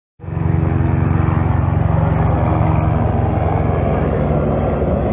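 An engine running steadily with a low, even hum, starting abruptly just after a moment of silence.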